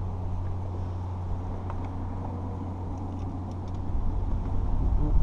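Steady low hum of a running vehicle, with a low rumble growing louder about four seconds in.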